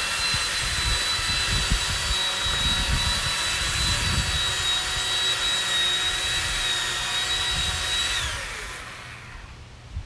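Corded electric chainsaw running at full speed as it cuts into a tree trunk, with a steady high whine; about eight seconds in the trigger is released and the motor winds down with a falling whine.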